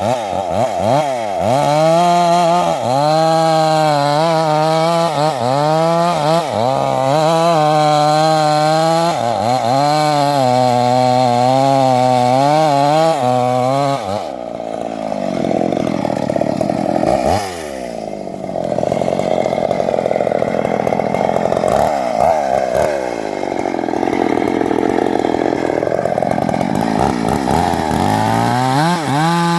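Chainsaw cutting an acacia tree. For about the first half the engine revs up and down in pitch. It then drops into a lower, rougher note as the chain bites into the wood under load for around fifteen seconds, and picks back up to a higher rev near the end.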